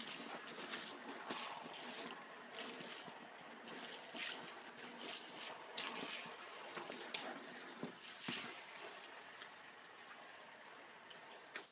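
Water from a hose spray nozzle hissing and splashing onto a soaked rolled-up rug and wet tiled floor, with occasional short taps and squelches from rubber boots on the wet rug. The spray is quieter near the end.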